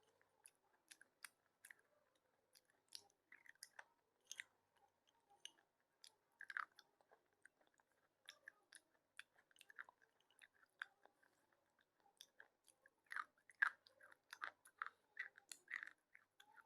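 Slate pencil being bitten and chewed: irregular soft crunches and small crisp clicks, with a denser run of louder crunches near the end.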